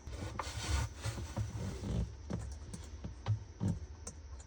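Irregular small clicks and scrapes of hands working in a Sea-Doo's electrical box, pushing a replacement fuse into its holder, over a low steady rumble.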